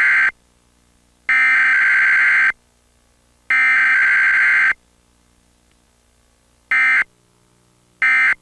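Emergency Alert System SAME digital data bursts, sent as a Required Weekly Test over Comcast cable. The end of one header burst is followed by two more header bursts, each about a second long and a second apart. About a second later come two short end-of-message bursts, a little over a second apart.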